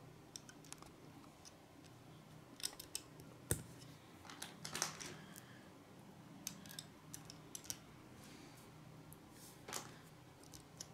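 Lego bricks being handled and pressed onto a small build: faint, irregular small plastic clicks, one sharper snap about three and a half seconds in.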